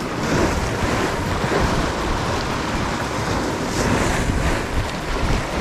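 Sea waves breaking and washing over shoreline rocks, a steady rush of surf, with wind buffeting the microphone.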